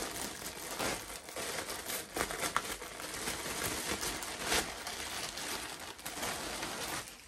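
Clear plastic bag crinkling and crackling as it is handled, pulled open and a pair of jeans drawn out of it, with a few sharper crackles along the way; it dies down near the end.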